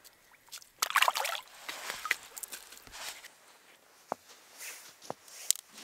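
Water splashing in an ice-fishing hole about a second in, as a splake is let go into it. Near the end, a few sharp snaps of dry twigs being broken for kindling.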